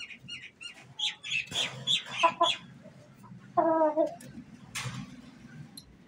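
Aseel chickens clucking: a quick run of short calls over the first couple of seconds, then one longer, lower call about three and a half seconds in. A few brief rustling noises come between the calls.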